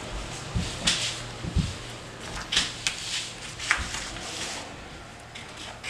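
Pen strokes scratching on a sheet of paper as tally marks and numbers are written, several short separate strokes, with a couple of soft bumps of the paper or hand against the table in the first two seconds.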